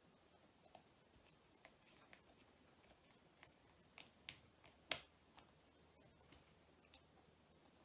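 Small screwdriver driving tiny screws into the plastic motor housing of a model locomotive bogie: faint, scattered clicks and ticks, the loudest about five seconds in.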